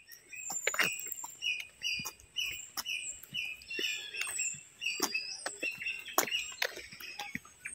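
Birds chirping: a short chirp repeated about twice a second, with high, thin calls sliding downward over it, and a few faint clicks.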